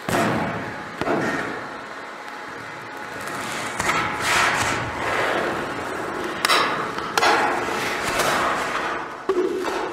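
A series of thumps and knocks, about five in all, each followed by a rushing noise that fades.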